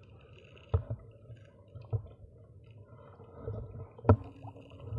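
Shallow seawater sloshing and dripping around a camera held at the water's surface, with a handful of short dull knocks, the loudest about four seconds in.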